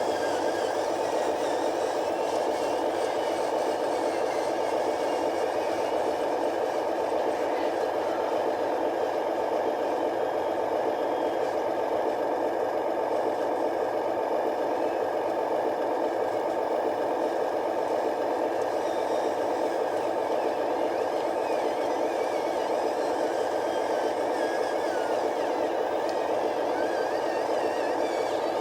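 Remote-control truck's small electric motor and gearbox running steadily, with a light rattle.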